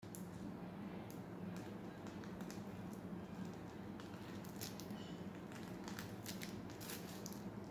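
Faint crinkling and squishing of a plastic piping bag squeezed by hand as buttercream rosettes are piped. The sound comes as scattered soft clicks, most of them in the second half, over a steady low hum.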